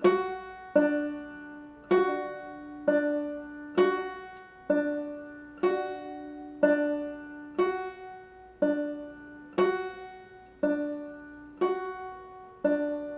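Five-string banjo played clawhammer style in a slow drop-thumb exercise: single notes alternately picked on the 1st string with the index finger and the 2nd string with the thumb, at a steady pace of about one note a second. Each note rings and fades before the next.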